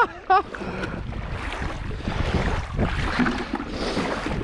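Wind buffeting the microphone over water sloshing and splashing as someone wades through shallow rock pools in wellington boots.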